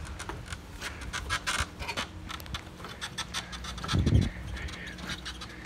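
Knocks, clicks and scrapes of work boots on ladder rungs as a man climbs down a ladder leaning against a tree, with one louder low thump about four seconds in.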